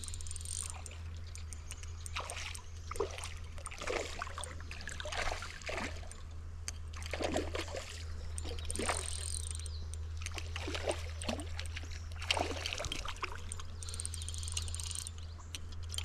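Water splashing and sloshing in irregular bursts as a hooked smallmouth bass fights near the surface of a creek.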